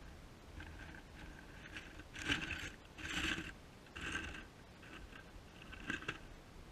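A mouse moving inside a live trap: a few short scratching, rustling bursts, the loudest about two to four seconds in, with light clicks of its body and claws against the trap.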